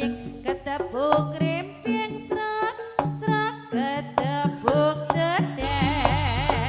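Live jaranan ensemble music: a bright, swooping melody of short notes over steady drum strokes, with a deep low gong-like hum returning near the end.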